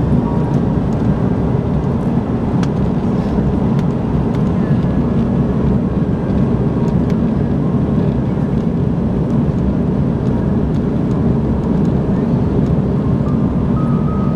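Cabin noise inside an Airbus A330 as it rolls along the ground: the jet engines and cabin air run as a steady, low rumble that neither rises nor falls.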